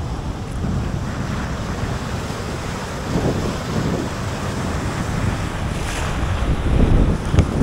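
Surf of a rough sea breaking against a boulder sea wall, with wind rumbling on the microphone. The surge swells louder near the end, and a couple of sharp clicks follow.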